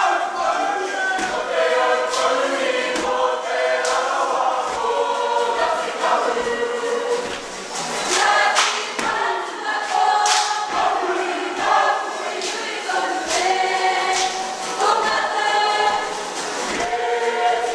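A large kapa haka group of women and men singing together in unison, with sharp percussive strikes scattered through the song.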